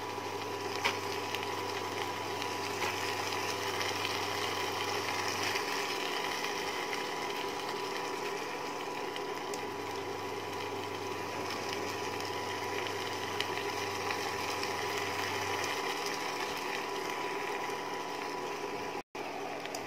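Induction cooktop running on low heat: a steady fan hum with a thin high whine, and a low buzz that switches off about six seconds in, comes back near ten seconds and stops again near sixteen, as the hob pulses its power.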